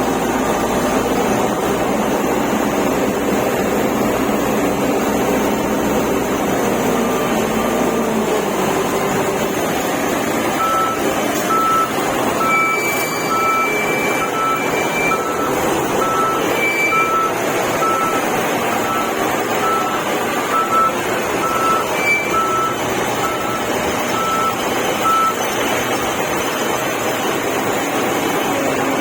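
Wheel loader engine running under load, with its reversing alarm beeping at an even pace, about once a second, through the middle part of the clip.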